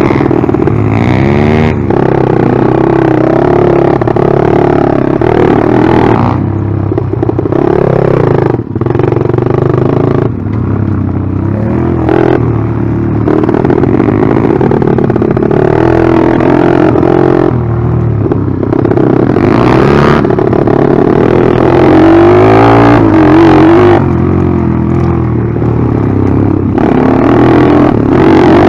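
Small single-cylinder four-stroke pit bike engine heard close up from the bike while riding, its revs rising and falling again and again as the throttle is worked.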